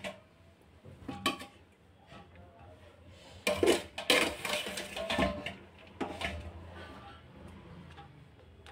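A serving utensil scraping and knocking against cooking pots as cooked rice is spooned into the pot for a biryani layer: a clink about a second in, then a cluster of louder scrapes and clinks from about three and a half to six seconds.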